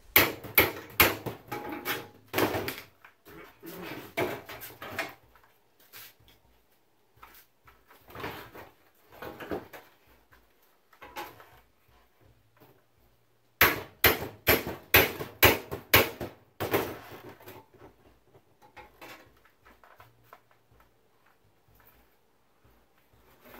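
Steel hand hammer striking a splitting chisel driven between the rusted, spot-welded sheet-steel panels of a Land Rover Series 3 bonnet frame to split them apart: sharp metal-on-metal blows, two or three a second, in two spells with a few lighter knocks between.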